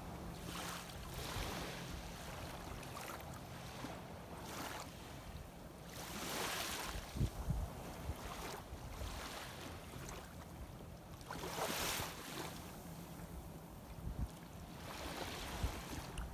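Shallow seawater sloshing and lapping in swells every few seconds, with a few sharper splashes and a faint steady low hum underneath.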